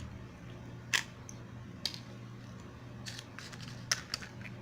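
A few sharp plastic clicks and taps from a small bottle of slime colouring being opened and squeezed to add drops of purple dye, over a steady low hum.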